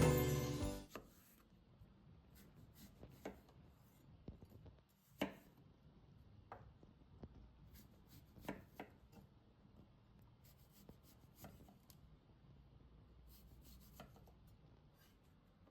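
Background music fading out in the first second, then quiet kitchen preparation sounds: scattered light taps and knocks on a work surface, the loudest about five seconds in and again near eight and a half seconds.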